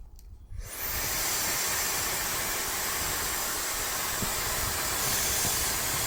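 Hair dryer switched on under a second in and blowing steadily, a loud even rush of air.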